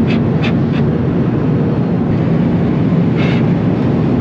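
Steady, loud drone of a moving vehicle, with short hissing bursts near the start and again about three seconds in.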